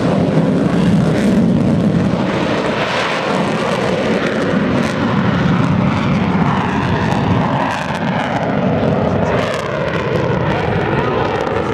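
F-15E Strike Eagle's twin jet engines in afterburner as it takes off and climbs away: a loud, steady jet roar.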